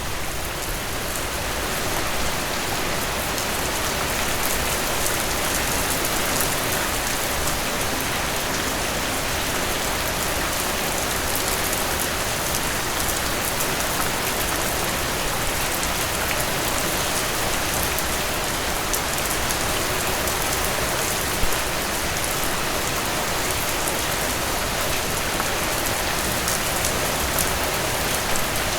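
Steady rain falling on a surface, a continuous hiss with fine patter of individual drops. One drop ticks a little louder about two-thirds of the way through.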